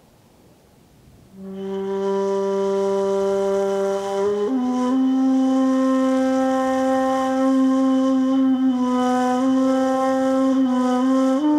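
Background music: a single wind instrument playing slow, long held notes. It comes in about a second in over a faint hiss and steps up in pitch about four and a half seconds in.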